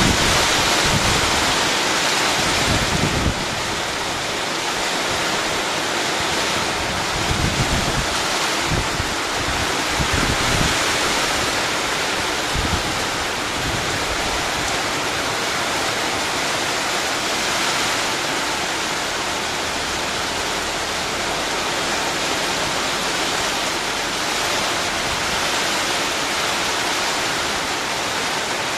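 Heavy rain pouring down as a steady, even hiss. Low buffeting rumbles of wind on the microphone come in the first few seconds and again around eight to eleven seconds in.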